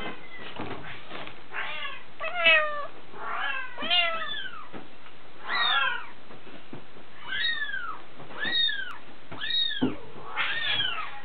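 Young Bengal kittens mewing repeatedly, about one high-pitched mew a second, each rising then falling in pitch.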